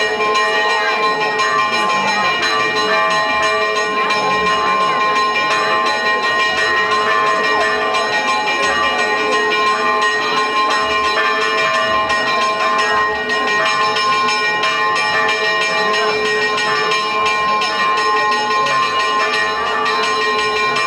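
Church bells pealing continuously without a break.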